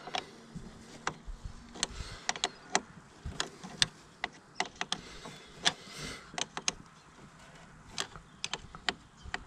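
A 10 mm spanner tightening the clamp nut on a car battery's negative terminal: a run of short, sharp clicks, a few a second and irregularly spaced.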